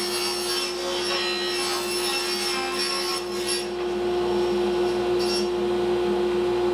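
Table saw running steadily with a constant hum while its blade rips a thin plywood sheet into 3-inch strips.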